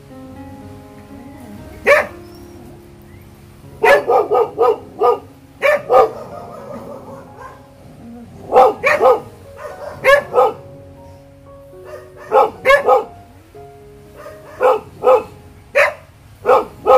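A dog barking over and over in short barks, often two to four in quick succession, over steady background music.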